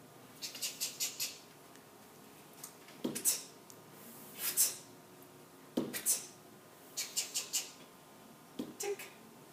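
Marker being drawn across a writing surface: clusters of short, scratchy squeaks, several quick strokes at a time with pauses between, as letter strokes are written.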